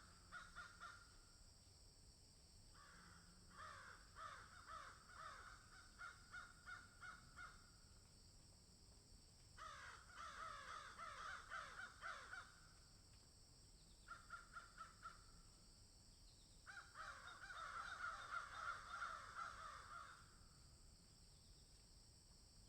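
Bird calling in about five bouts of fast, repeated chattering notes, each bout a few seconds long, over a steady high hiss.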